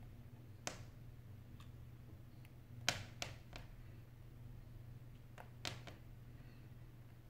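Small sharp clicks and taps from fingers handling the internal parts of an opened iPhone 8 Plus, about half a dozen spread out, the loudest about three seconds in, over a faint steady low hum.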